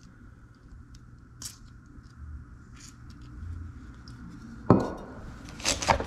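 Seatbelt retractor being worked by hand while its recoil spring is re-tensioned. A few faint clicks come first, then a sharp clack about three-quarters of the way through and a quick run of clicks as the belt webbing is pulled and the spool turns.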